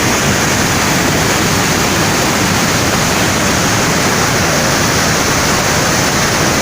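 A waterfall swollen by heavy rain, its water pouring down with a loud, steady rush.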